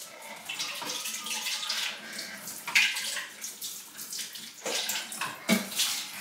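Water running from a tap and splashing into a container, coming unevenly with a few louder surges.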